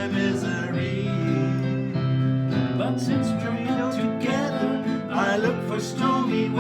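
Men singing a pop ballad to acoustic guitar strumming, over held low bass notes.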